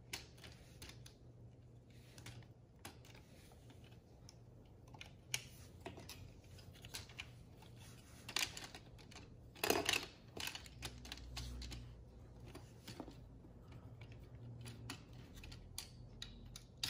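Plastic LEGO Technic parts clicking and clattering as they are handled and pressed into place, in scattered light clicks with a louder cluster about eight to ten seconds in.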